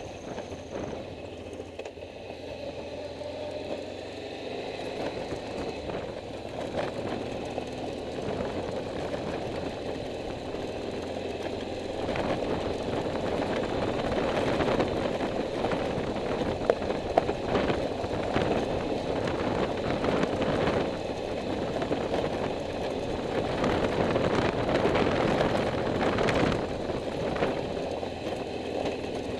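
A vehicle's engine running with road noise while driving, getting louder partway through, with a couple of brief sharp knocks in the middle.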